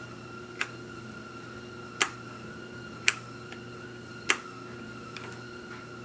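Sharp plastic clicks and taps as a motorcycle helmet's shell is handled and turned over: four louder ones roughly a second apart, then a few fainter ones, over a steady background hum.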